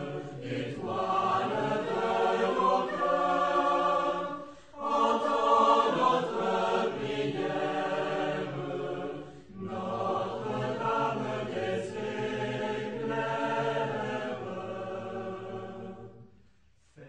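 Choir singing a chant-like piece in long held notes, its phrases broken by short pauses about every five seconds, fading out near the end.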